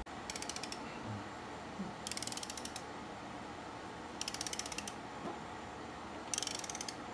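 Ratchet wrench clicking as its handle is swung back and forth, tightening a rear shock mounting bolt, in four short bursts of rapid clicks about two seconds apart.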